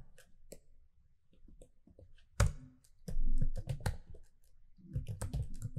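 Computer keyboard being typed on in short runs of sharp key clicks, with one harder clack about two and a half seconds in. Just after it comes a louder, duller noise lasting under a second.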